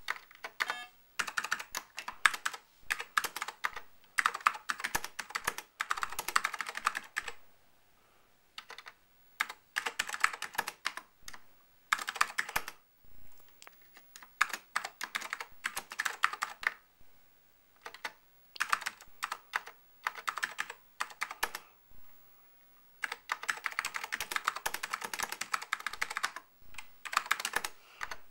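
Typing on an Apple IIgs keyboard: runs of rapid keystroke clicks with short pauses between them.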